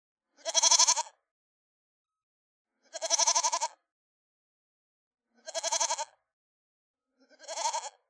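A goat bleating four times, about every two and a half seconds, each bleat short and quavering and a little softer than the one before.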